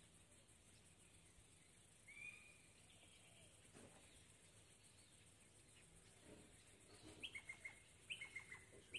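Quiet outdoor background of birds calling: one sliding call about two seconds in, then from about seven seconds on a call repeated roughly once a second, a sharp high note dropping into a quick run of lower notes. Under it runs a faint, steady, high-pitched insect drone.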